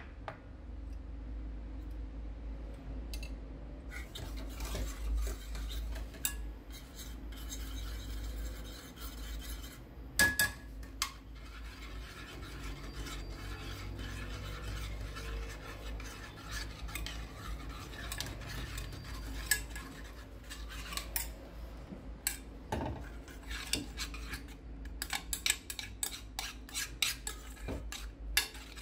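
A kitchen utensil stirring and scraping against cookware, with scattered sharp clinks and taps.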